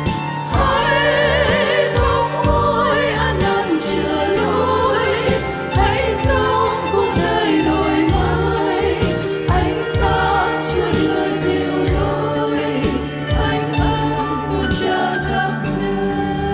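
Church choir singing a Vietnamese Catholic hymn, with voices carrying vibrato over sustained instrumental accompaniment.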